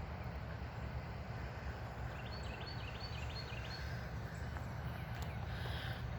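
A songbird singing a quick series of about six short, falling high notes, about two seconds in, over a steady low rumble.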